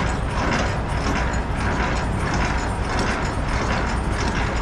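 Semi-truck engine idling with a steady low rumble, with a quick, irregular patter of light mechanical clicks over it.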